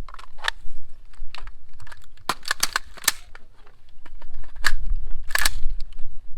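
Irregular sharp clicks and clacks from handling a firearm and its gear, with the loudest ones clustered about two to three seconds in and again around five seconds in.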